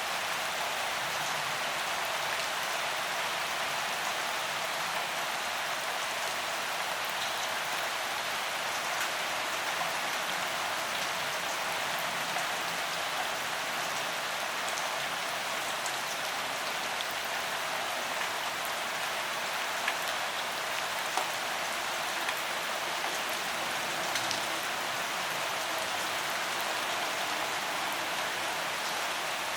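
Steady rain falling: an even hiss with scattered single drops ticking through it.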